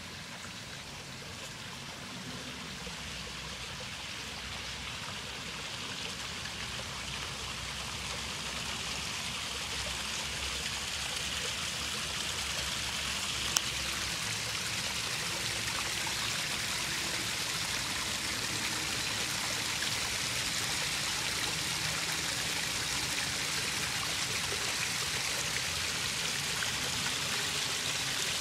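Backyard koi pond's small rock waterfall splashing, a steady rush of falling water that grows steadily louder. A single sharp click about halfway through.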